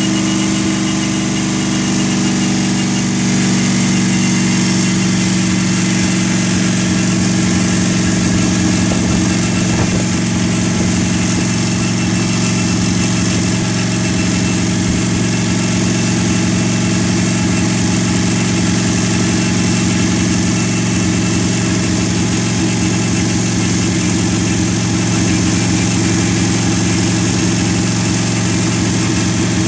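320 cubic-inch Buick straight-eight engine of a land-speed lakester idling steadily.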